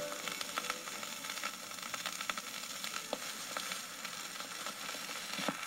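Surface noise of a 78 rpm record on a 1958 Silvertone Manumatic record player, with no music playing: a steady hiss and crackle with scattered sharp clicks as the stylus rides the groove.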